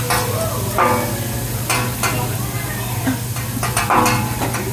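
Metal spatulas scraping and tapping on a teppanyaki flat-top griddle in a handful of sharp strokes, some with a short metallic ring, over a steady sizzle and a low hum.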